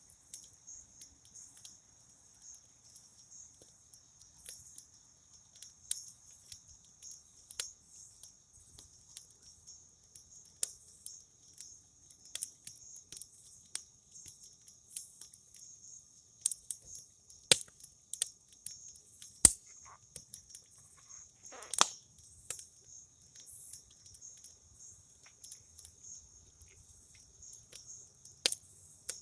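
Campfire crackling with scattered sharp pops, a few louder ones a little past the middle, over a steady high chirring of crickets.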